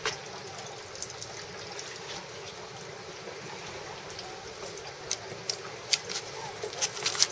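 Water trickling and dripping from a wet landing net holding a large catfish, with a few sharp clicks and taps in the last two seconds.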